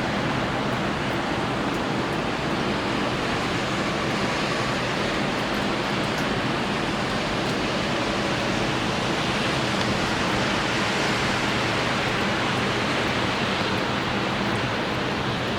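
Heavy rain falling, an even rushing noise that holds steady throughout.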